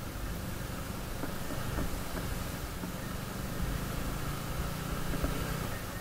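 Motorcycle riding over a rough, stony dirt track: the engine runs low under a steady hiss of wind and road noise, with a few small knocks.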